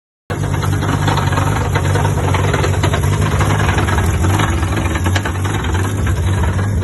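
Rotary engine idling steadily, loud and low, starting abruptly just after the start and cutting off suddenly at the end.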